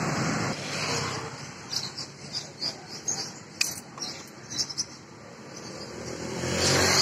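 Keys jangling and clicking in a motorcycle's ignition switch as the key is turned on, a run of small clicks with one sharper click midway. Street traffic is heard behind, a vehicle fading at the start and another coming up louder near the end.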